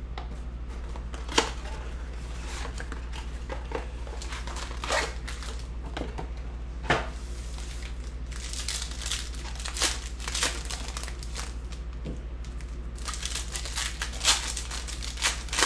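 Foil trading-card packs and a cardboard blaster box handled and opened by hand: crinkling wrappers and tearing, with scattered sharp taps and clicks, busiest in the second half. A steady low hum runs underneath.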